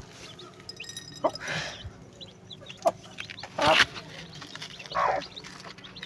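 Chickens clucking, with short calls spread through. There is a louder noisy burst about three and a half seconds in.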